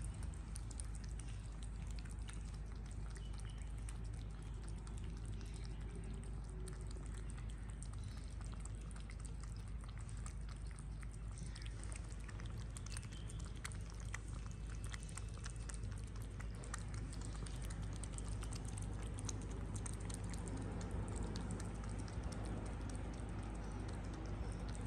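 Two kittens lapping runny food from small bowls: a steady patter of quick wet clicks, over a low steady hum.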